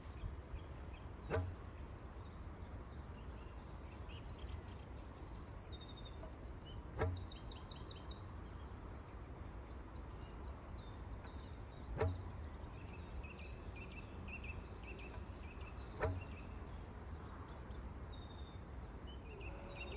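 Small birds chirping and giving short trills over a low steady outdoor rumble, with four sharp clicks a few seconds apart.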